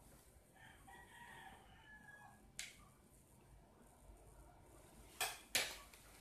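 A faint, drawn-out animal call in the first couple of seconds, followed by a single click and then two sharp knocks close together near the end.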